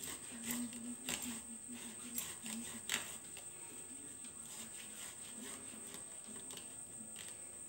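Soft boiled potato grated on a flat metal hand grater: irregular rasping strokes of potato over the blades, clearer in the first three seconds, then fainter.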